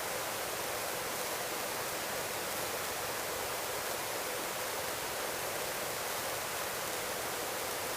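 Steady, even hiss of helicopter cabin noise in flight, carried over the headset intercom, with no clear rotor beat.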